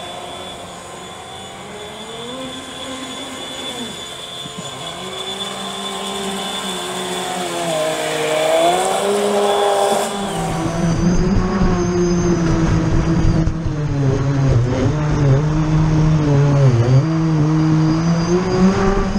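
Blue RC jetski's water-cooled brushless electric motor and jet drive whining, its pitch rising and falling with the throttle. About ten seconds in, the sound switches to close-up on board the hull: the whine is louder, with a low rumble of rushing water.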